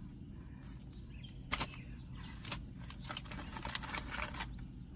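Paper food wrapper rustling and crinkling as it is handled, with a sharp click about a second and a half in, over a steady low hum.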